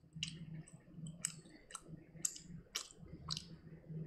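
Mouth sounds of chewing food: wet smacking clicks, about two a second, over a faint low hum.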